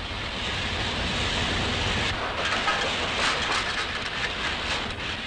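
Steam locomotive running at speed, heard from its cab: a steady noisy rumble of the running gear, with wheel clicks over the rail joints from about halfway in.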